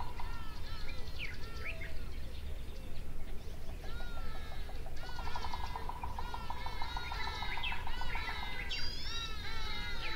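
Several birds calling and chirping: short whistled notes sliding up and down in pitch, with a fast, even trill running through the middle for about three seconds, over a steady low background rumble.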